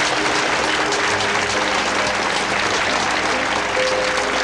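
Audience applauding steadily, many hands clapping at once, with faint music held beneath it.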